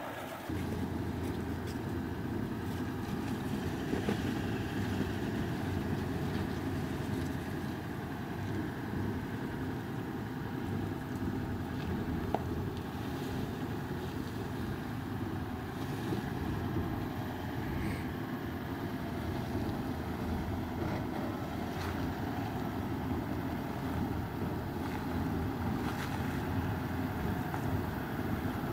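Toyota LandCruiser 200 Series crawling slowly over rocks under Crawl Control, which works the throttle and traction control to hold a steady creeping pace. Its engine and driveline run low and steady, with a few faint knocks.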